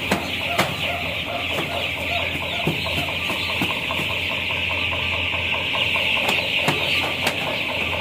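A large flock of week-old broiler chicks peeping continuously in a dense, high-pitched chorus, with a few sharp clicks near the start and a steady low hum underneath.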